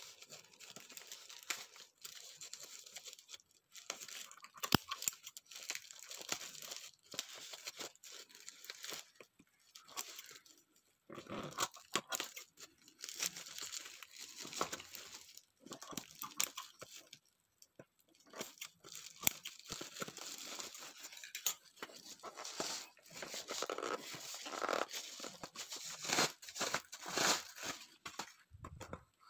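Plastic bubble-wrap mailer being handled, cut with scissors and pulled open: irregular crinkling, crackling and tearing of plastic, with sharp clicks and short pauses between bursts.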